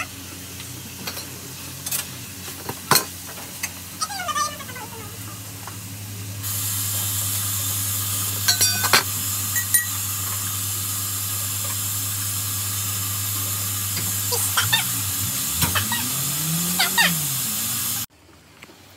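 Meat and onions frying in a pan on a gas stove: after a few utensil clicks, a loud steady sizzle starts about six seconds in, with stirring clicks over it, and cuts off abruptly near the end.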